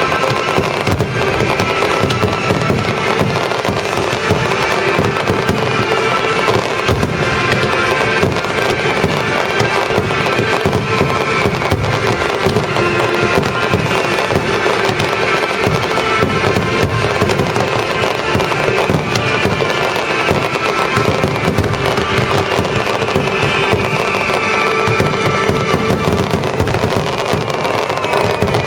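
Dense, unbroken barrage of aerial fireworks: rapid crackling and bangs with no pause, over symphonic music played for the show.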